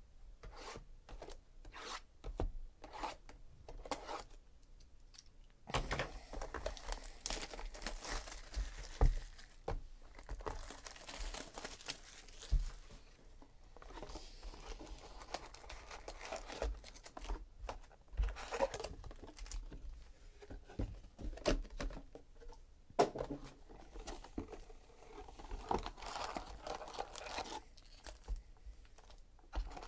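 Plastic shrink wrap torn off a Panini Contenders Draft Picks trading-card hobby box and crinkled for several seconds. Then the cardboard box is opened and its foil card packs rustle and tap as they are pulled out and stacked.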